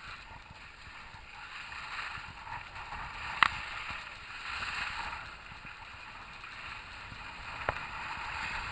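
Edges sliding over packed snow: a steady scraping hiss that swells and fades as the riders carve down the slope. A sharp click about a third of the way in, and a fainter one near the end.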